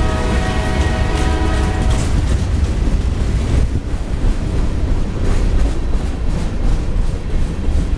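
Freight train cars, covered hoppers and gondolas, rolling past close by with a steady low rumble. A steady high tone sounds over it for the first two seconds. After that the wheels clatter over the rail joints in a run of repeated clicks.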